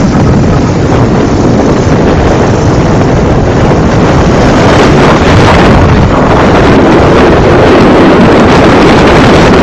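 Loud, steady wind rushing over the microphone of a camera moving at road speed, over the rumble of road traffic and engines.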